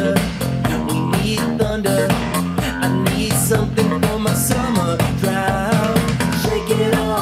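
Disco-funk track with a steady beat, bass and guitar, played through a KRK Rokit 5 G3 (RP5 G3) studio monitor and picked up by a handheld recorder in the room.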